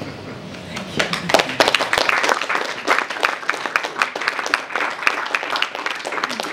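Audience applauding, beginning about a second in and loudest soon after.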